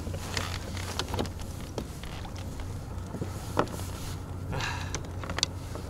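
Handling noise aboard a fishing kayak: scattered sharp knocks and clicks over a steady low hum, with a short rush of hiss about four and a half seconds in.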